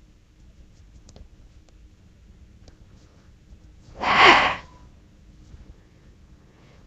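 Faint, scattered clicks of a steel crochet hook working yarn, broken about four seconds in by one loud, short burst of breath from the crocheter lasting under a second.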